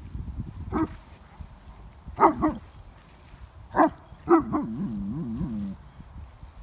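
Young German shepherd barking to get the other dog to play: five short, sharp barks, the last running into a wavering whine-like grumble for about a second.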